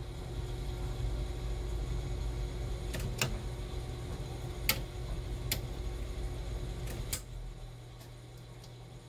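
Steady low electrical hum with a faint steady whine, broken by several sharp clicks; just after seven seconds a last click comes, the whine stops and the sound drops to a quieter hum.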